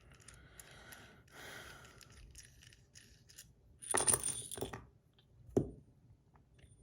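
Small stainless steel bar spinner parts being worked on by hand: light scraping, then a metallic clink with a short high ring about four seconds in, and a single knock shortly after.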